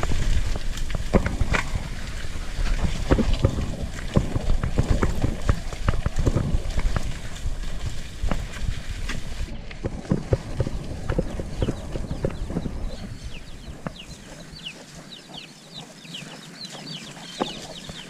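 Mountain bike rattling and knocking over a rough dirt trail, with a steady rumble of tyres and wind on the handlebar-mounted microphone. The rumble fades about two-thirds of the way through, and short high bird chirps come in near the end.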